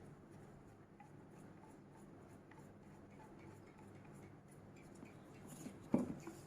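Faint clicks and handling noise from fitting the side handle onto a Bosch angle grinder, with one louder knock about six seconds in.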